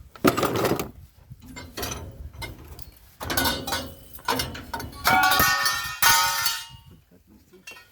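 Lengths of copper pipe clanging and clinking against metal in several separate bursts. The loudest, from about five seconds in, rings on briefly.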